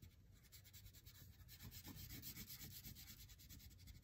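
Faint rubbing of a wax crayon stroked sideways across paper with light pressure.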